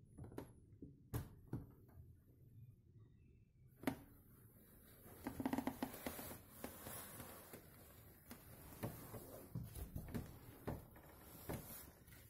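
Faint rustling and scattered small clicks, with a soft hiss from about four seconds in.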